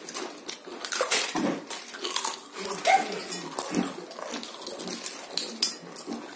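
Potato chips being crunched and chewed by several people eating fast: a string of irregular crisp crackles, with a brief murmur-like mouth sound about halfway through.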